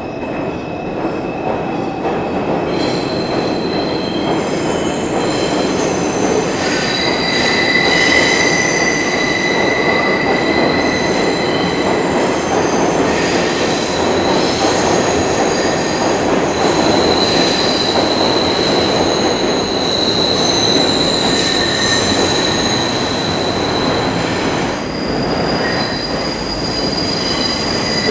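New York City subway R142 train pulling out along the station platform: a steady, loud wheel-and-rail rumble with high-pitched wheel squeal that comes and goes.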